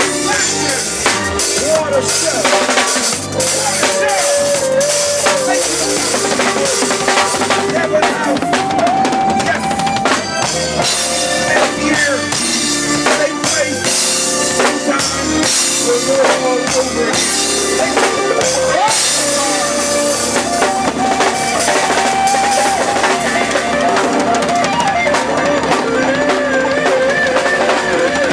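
Live reggae band playing an instrumental passage, the drum kit prominent with kick, snare and cymbal hits under a wandering melody line.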